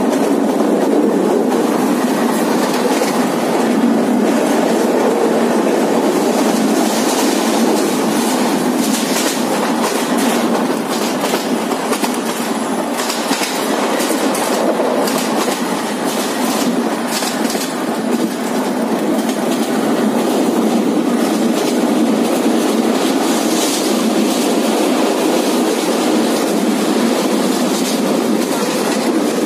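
Kalni Express passenger train of Bangladesh Railway running at speed, a steady loud rumble of wheels on the rails with scattered clicks over the top.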